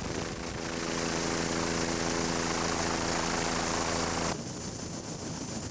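Helicopter turbine and rotors running steadily, heard from aboard in flight: a steady hum of several even tones under a loud rush of wind. It cuts off abruptly about four seconds in, leaving only a fainter wind hiss.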